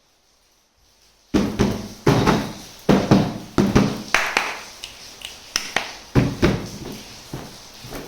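Toy kitchen set pieces being unboxed and handled: an irregular series of sharp knocks and clacks as pieces are picked up, tapped and set down, starting a little over a second in.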